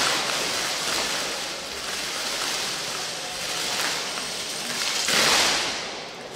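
Steady noise of a large sports hall and its audience, swelling louder for under a second about five seconds in.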